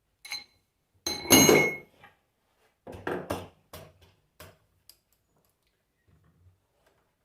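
Metal parts and tools being handled on a workbench. A ringing clink, then a louder clatter about a second in, then a run of sharper knocks that die away.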